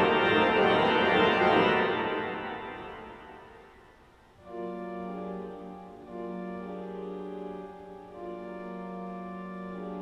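Aeolian-Skinner pipe organ in a cathedral: a loud, full chord dies away in a long reverberant decay over about two seconds, then softer sustained chords come in about four and a half seconds in, changing every couple of seconds.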